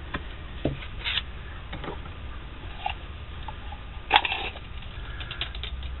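Handling noise from picking up and moving a small folding pocket knife: scattered light clicks and taps, with one sharper click about four seconds in.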